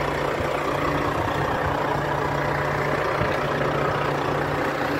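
Volvo 440 tractor unit's diesel engine idling with a steady, even hum.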